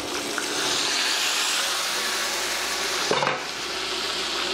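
Flour-dredged chicken thighs sizzling in hot oil in a pan. The steady sizzle swells as the glass lid comes off, and there is one short knock about three seconds in.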